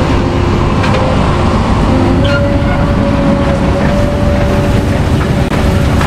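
Grimme Ventor 4150 self-propelled potato harvester running as it digs along the potato rows: a loud, dense machine noise with a steady whine that shifts pitch a few times and occasional light clicks and rattles.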